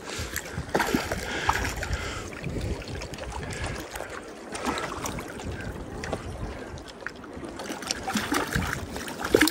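Wind buffeting the microphone over choppy lake water lapping at the shore, with a few faint clicks.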